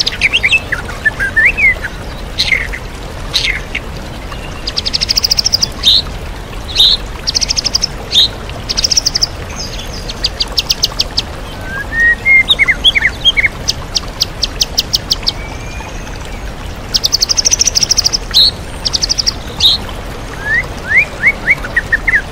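White-rumped shama singing in varied short phrases, fast rattling trills and whistled slurs, with its song full of mimicked calls of other birds. A steady rush of waterfall noise runs beneath it.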